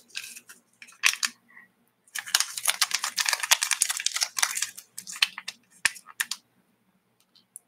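Crinkling and tearing of a small packet being pulled open by hand: a dense crackle lasting about three seconds, with a few separate clicks before and after it.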